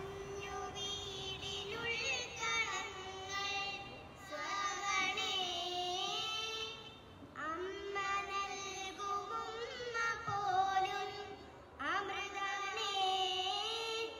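Young girls singing a song into handheld microphones: a melody of long held notes in phrases, with short breaks between phrases.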